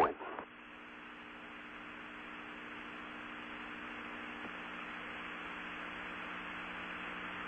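Steady hiss with a low, many-toned hum from an open broadcast audio line, slowly growing a little louder.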